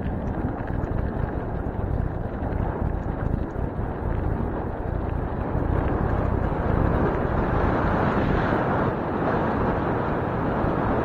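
Wind rushing over the microphone of a camera on a moving bicycle, mixed with the rumble of the tyres on a dirt trail, a steady noise that grows a little louder about halfway through as the ride speeds up.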